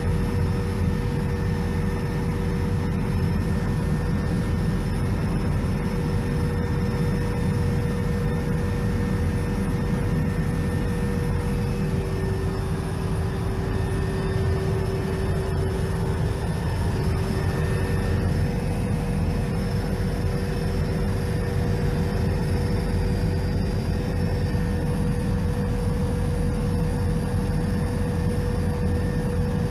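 Brazilian Air Force helicopter in flight, heard from inside the cabin: a steady drone of engine and rotor with a constant whine over it.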